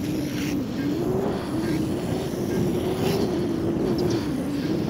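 Inline skate wheels rolling over asphalt: a steady rumbling hum that wavers slightly in pitch as the speed changes, with a few light ticks.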